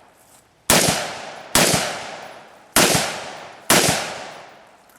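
Four gunshots from a firearm fired at a multigun match stage, spaced about a second apart, each dying away in a long echo.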